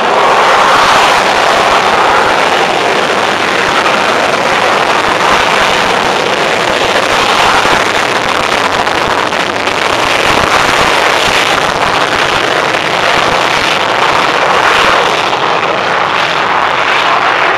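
Saab JAS 39 Gripen's single Volvo RM12 jet engine running at high power on the runway, loud and steady.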